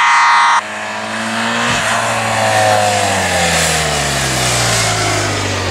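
A vehicle horn sounds for about a second and stops sharply. Then a motor vehicle's engine passes close by, its pitch falling steadily as it goes away.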